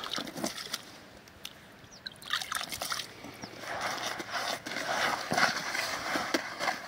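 Water dripping from cupped hands into a bucket of fishing groundbait, then hands mixing and kneading the damp groundbait, a wet sloshing and rustling that starts about two seconds in and grows louder.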